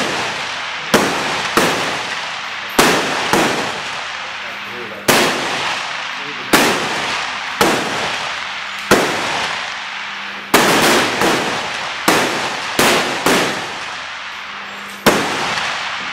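Rifle shots along a benchrest firing line, about fifteen sharp cracks at irregular intervals, sometimes two or three in quick succession. Each shot is followed by a long echoing tail.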